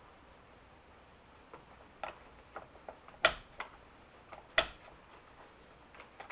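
Scattered light clicks and taps of hand work on a Homelite XL chainsaw, with two sharp knocks a little over three seconds in and again about a second later.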